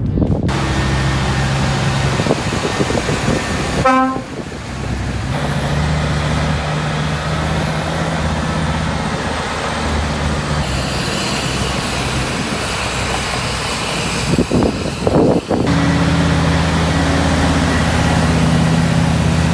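Heavy diesel engines of large earthmoving machines and trucks running steadily, their pitch shifting at several edits. A short horn toot sounds about four seconds in.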